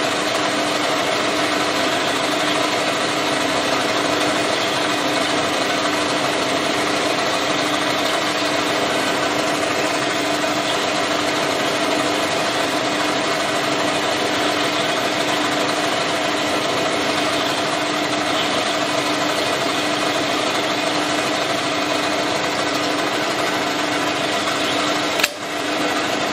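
A machine tool's spindle running steadily at about 800 rpm, a continuous hum with a few held tones, while a piloted counterbore cuts an 8 mm recess into a cast iron plate. Near the end there is one sharp click.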